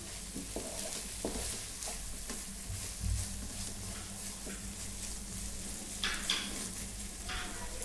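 Prawns frying in a thick, dried-down masala in a nonstick kadai, sizzling steadily, with the masala at its frying stage. A wooden spatula stirs and scrapes across the pan several times.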